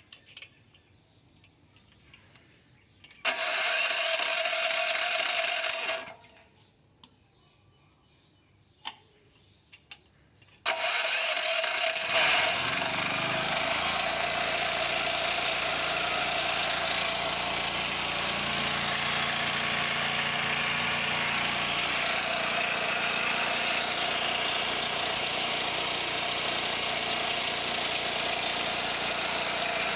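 Generator engine runs for about three seconds and stops. After a pause with a few clicks it is started again, and it catches and keeps running steadily.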